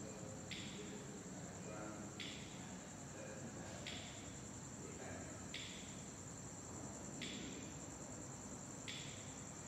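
Steady high, shrill insect-like tone, with a hissing pulse repeating evenly a little under every two seconds, over faint distant voices.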